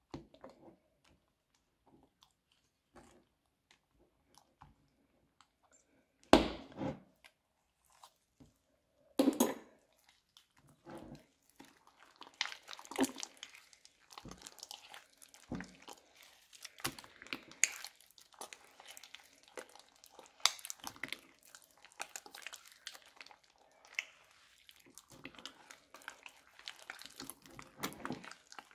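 Thick slime being stirred with a spatula in a glass bowl, then squeezed and kneaded by hand, giving sticky squelches and dense crackling clicks that fill the second half. There are two louder thumps about six and nine seconds in.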